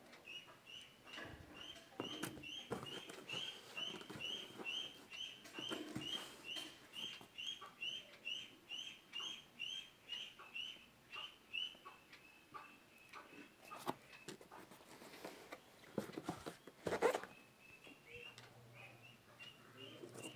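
A bird chirping over and over, a short, even chirp about twice a second, loud for the first half and fainter later. Scattered clicks and rustles of packaging being handled run through it, with a sharper crackle about seventeen seconds in.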